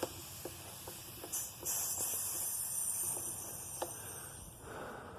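A steady spray hiss, starting about a second and a half in and lasting about three seconds, with a few faint clicks before it: leak-check liquid being sprayed over a freshly plugged tyre to look for bubbles.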